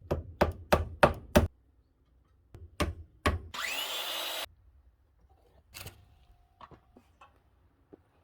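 Knocks on wood, like hammer blows: five quick strikes in the first second and a half and two more a little later. They are followed by about a second of hissing whir that rises in pitch, then a few faint knocks near the end.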